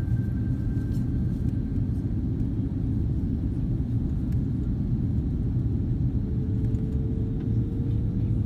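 Steady low rumble of an airliner's cabin during descent, engine and airflow noise heard inside the cabin. A faint rising whine joins it near the end.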